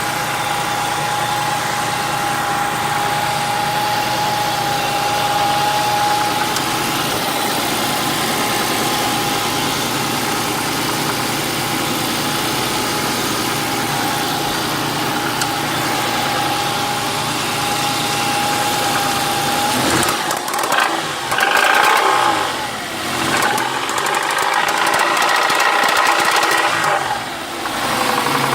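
Ford Mondeo ST220's 3.0 24-valve V6 engine running steadily with a knocking noise, then revved up and down several times from about twenty seconds in.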